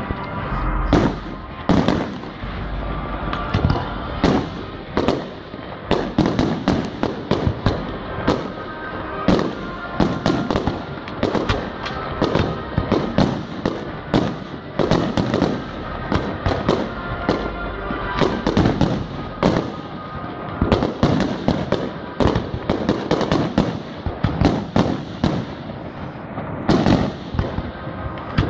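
Aerial fireworks display: shells launching and bursting in rapid succession, about one bang a second, with echoing crackle between the reports.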